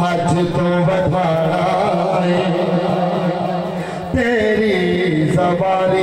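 A man chanting a mourning elegy in long, drawn-out, wavering sung notes, amplified through a microphone, over a steady low drone. About four seconds in, his voice slides down in pitch.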